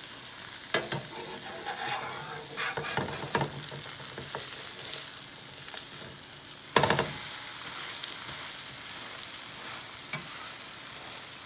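Omelette frying in hot oil in a pan, sizzling steadily, while a spatula scrapes and knocks against the pan as the halves are turned. A sharp clack about seven seconds in is the loudest sound.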